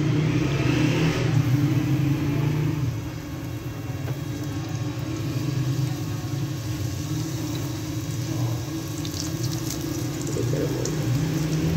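Small potato samosas in thin samosa-strip pastry sizzling and bubbling as they deep-fry in oil on medium-low heat in an aluminium kadai, loudest in the first few seconds as they go into the oil, then a steady frying hiss over a low rumble.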